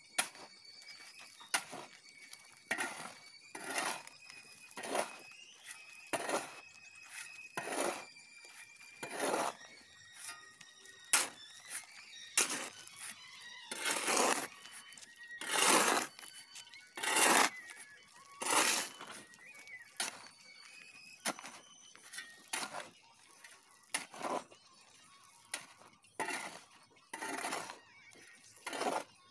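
A steel shovel scraping and scooping dry gravel, sand and cement across a concrete floor, with a crunching stroke about every second or so. This is the dry-mixing stage of hand-mixing RCC concrete.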